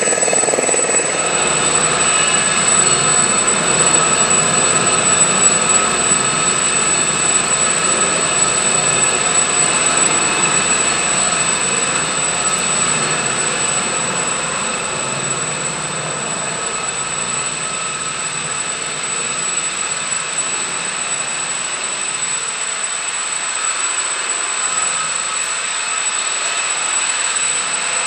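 Aérospatiale Gazelle helicopter hovering just above the ground: steady whine from its Turbomeca Astazou turboshaft, with several high steady tones over rotor noise. The sound eases slightly partway through and builds again near the end.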